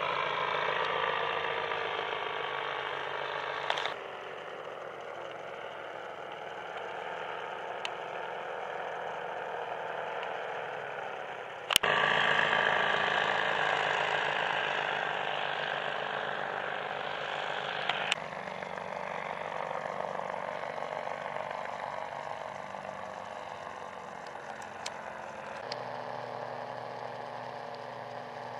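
Four-stroke paramotor engine and propeller droning as the powered-paraglider trike flies past overhead, its pitch sliding down with each pass. The drone jumps suddenly in level a few times with a sharp click.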